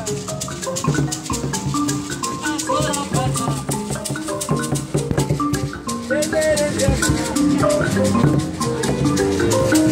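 Live mbira music: a repeating pattern of short plucked metal-key notes from an mbira played in a large calabash resonator, over a fast, even shaker rattle, with a man singing.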